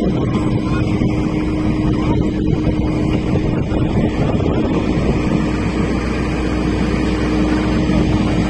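HAMM DV70 tandem asphalt roller's diesel engine running steadily, with a steady droning tone over a low rumble.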